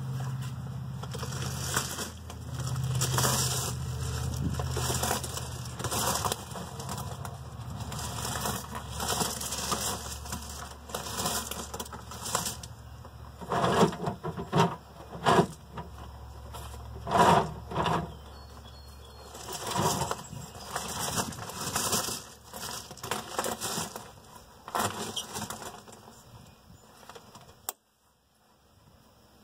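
Irregular rustling and knocks from a handheld camera being moved and handled. A low steady hum is under it for the first few seconds and fades. Near the end the sound cuts off abruptly.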